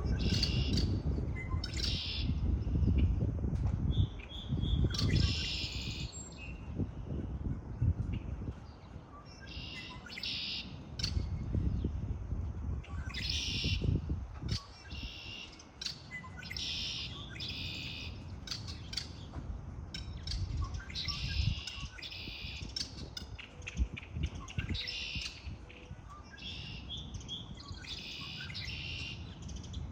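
Songbirds chirping and singing in short, repeated high phrases, one after another, over a low rumble that is strongest in the first half.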